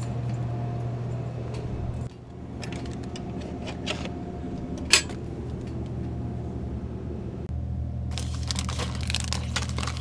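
Vending machine being restocked: rattling and clicking from handling, with one sharp click about five seconds in, over a steady low hum. Near the end, snack wrappers crinkle as candy bags are pushed into the machine's coils.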